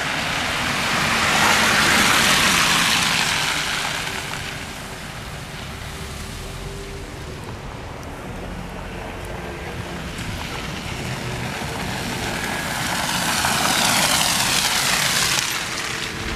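Cars driving past on a snow-covered street, their tyres hissing through the snow under a low engine rumble. One passes close in the first few seconds, the traffic is quieter in the middle, and another car swells up and passes close about 13 to 15 seconds in.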